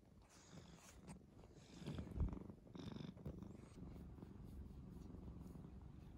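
Domestic cat purring faintly and steadily while its cheek and chin are stroked, a sign that it is content. There are a few soft rustles of the fluffy bed in the first half as the cat shifts.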